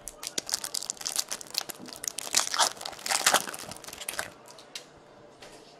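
Hockey card pack wrapper being torn open, a quick run of crinkling and tearing crackles for about four seconds, loudest in the middle, then dying away.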